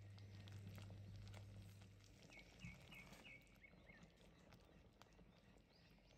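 Near silence: a faint low electrical hum that cuts off about two seconds in, then a quick run of short high chirps, with faint clicks and scrapes of a silicone spatula stirring thick rice pudding in a steel pot.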